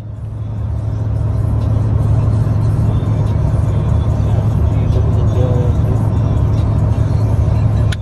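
Harley-Davidson touring motorcycle's V-twin engine running steadily at highway cruising speed, with wind and road noise. The sound fades in sharply at the start.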